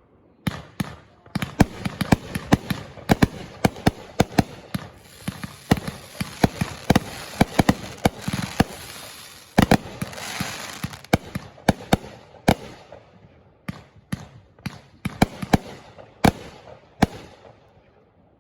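Fireworks going off: a rapid, irregular string of loud bangs and pops with crackling, densest around ten seconds in, then thinning to scattered bangs near the end.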